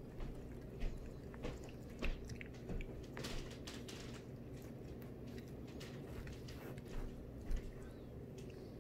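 Raccoon biting and chewing a grilled ham and cheese sandwich: irregular small crunches of the toasted bread, most in the first few seconds and a couple more near the end.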